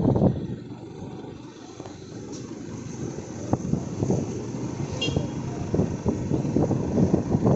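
Running noise of a vehicle moving along a street, heard from on board: a low, uneven rumble with irregular buffeting. A short high chirp cuts through about five seconds in.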